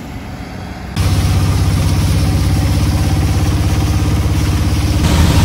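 Auto-rickshaw engine running steadily, heard from inside the open cab as it drives along a flooded road, with a steady rushing hiss over it. It cuts in suddenly about a second in.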